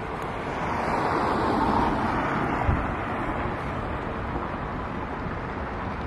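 Road traffic: a vehicle passing on the road swells to its loudest about two seconds in and fades away, with a short low thump just after. Wind rumbles on the microphone throughout.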